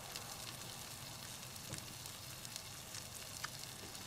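Pieces of blue catfish sizzling quietly in butter in a cast iron skillet on its leftover heat after the burner has been turned off: a steady hiss with small scattered pops.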